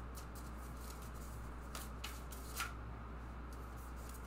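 A deck of tarot cards being shuffled by hand, overhand: soft sliding and flicking of cards against each other, with a few light clicks, the sharpest about two and a half seconds in.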